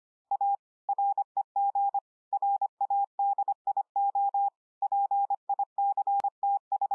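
Morse code beeps: a single steady mid-pitched tone keyed in quick short and long beeps, dots and dashes, with brief gaps between groups.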